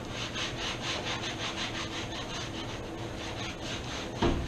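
Rhythmic scrubbing of a cutting board at a kitchen sink, about five strokes a second, with a single knock near the end.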